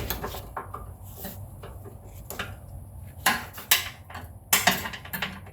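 Irregular metallic clinks and knocks of hand tools and parts being worked under a riding mower's deck linkage, with a few louder knocks in the second half.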